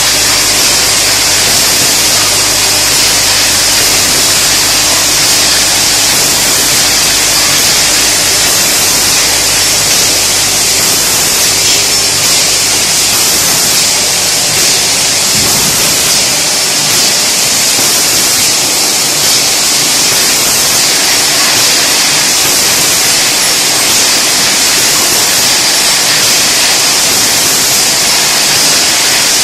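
Bottle conveyor and rotary filling-and-capping machine running: a steady, loud hiss with a low hum underneath that drops away about halfway through.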